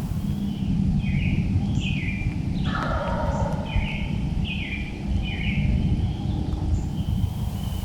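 A bird calling over and over in short falling notes, one about every second, over a steady low rumble. About three seconds in, a louder, rougher call sounds briefly.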